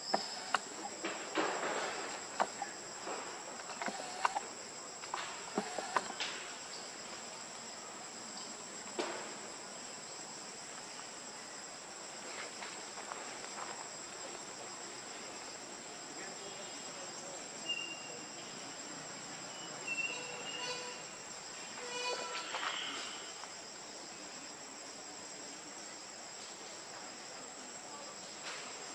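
Steady high-pitched drone of forest insects. Scattered clicks and rustles come in the first few seconds, and a few short chirps come about two-thirds of the way through.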